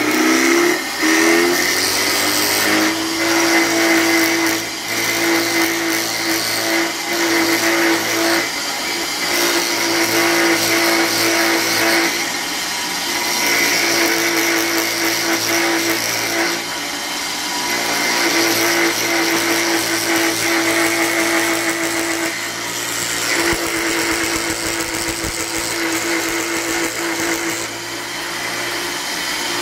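Homemade electric router (tupia) spinning up over the first couple of seconds, then running steadily with a steel bit cutting a decorative profile into a strip of wood. Its whine falters briefly several times as the bit bites into the wood.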